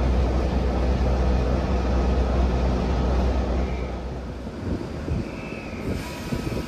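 Steady low rumble of a railway locomotive running, which drops away about four and a half seconds in, leaving a quieter, uneven background.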